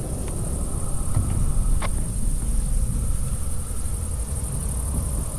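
Crickets chirping steadily in the night, over a low, uneven rumble.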